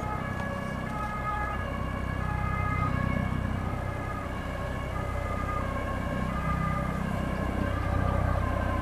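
Dutch ambulance's two-tone siren, stepping back and forth between a high and a low note, over a steady low rumble.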